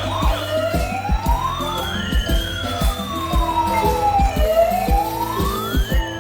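Electronic toy ambulance siren. Just after the start it switches from a rapid yelp to a slow wail that rises and falls twice, each sweep taking about four seconds. Background music with a beat plays underneath.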